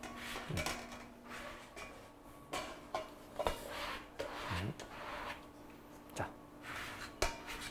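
Kitchen utensils scraping and knocking against cookware: several sharp knocks and clinks, with short stretches of scraping in between.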